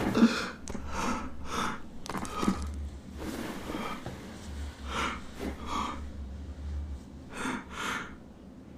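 Soft breaths and gasps from a person, about a dozen short puffs spread unevenly, over a faint low hum.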